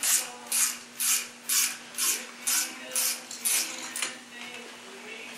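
Clutch spring compressor tool on a Turbo 350 direct clutch drum being wound off by hand. It makes a rhythmic rasping, about two strokes a second, that dies away about four seconds in.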